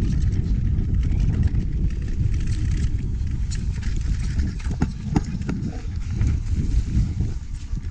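Mountain bike descending a rocky dirt trail at speed: wind rumbling on the microphone, tyres crunching over dirt and loose gravel, and the bike rattling over bumps. A cluster of sharper knocks about five seconds in.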